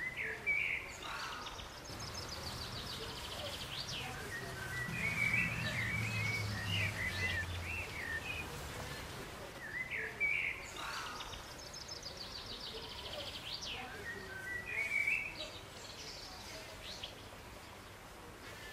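A songbird singing outdoors: two song phrases about ten seconds apart, each made of quick chirps and a fast run of high notes that falls in pitch. A faint low hum sits under the first half.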